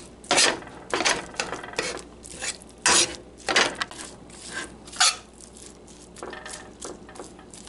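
A metal utensil scraping and knocking against a stainless steel frying pan in irregular strokes, as it breaks up ground venison and stirs it with chopped onions and peppers. The strokes are busiest and loudest in the first five seconds, then thin out.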